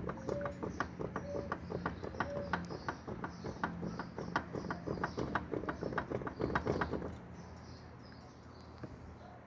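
Rapid, irregular clicking and tapping, several knocks a second, that stops about seven seconds in and leaves a faint steady hum; faint high chirps run over it.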